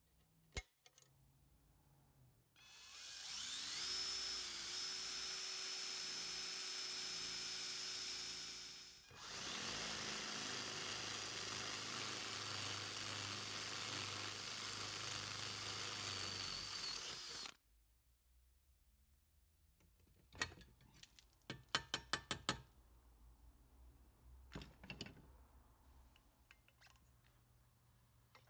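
Electric drill boring out spot welds in a steel bracket. Its whine rises as the motor spins up, runs steadily for about six seconds, stops briefly, then runs again for about eight seconds. A scatter of sharp clicks and light knocks follows near the end.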